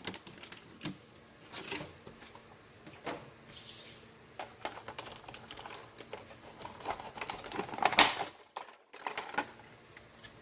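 Packaging being handled as items are taken out of a box: irregular plastic and cardboard clicks and rustles, with a brief rustle about three and a half seconds in and a sharp click about eight seconds in.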